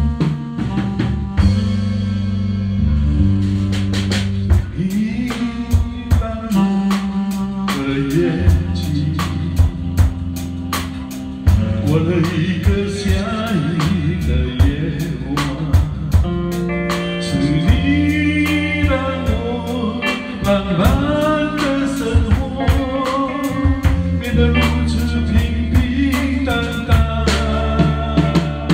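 A band playing a slow pop song: a singer over drum kit, bass guitar and guitar, with steady drum strikes and sustained bass notes.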